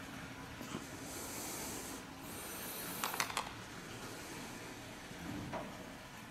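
Quiet outdoor street ambience: a faint steady hiss that grows louder for a couple of seconds from about a second in, with a brief cluster of sharp clicks about three seconds in.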